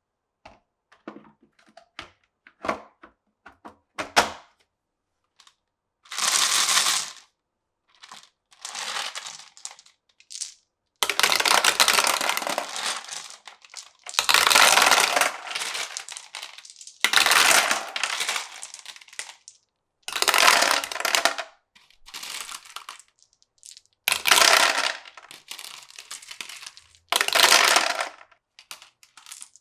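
Glass marbles on a wooden marble run. First come a string of light clicks as marbles tap against wooden blocks. Then come repeated runs of rolling sound, each one to two seconds long, as marbles roll and clatter along the tracks one after another.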